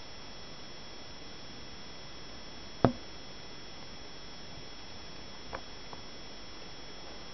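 Steady faint hiss with a thin high whine, broken by one sharp knock about three seconds in and two light clicks a couple of seconds later.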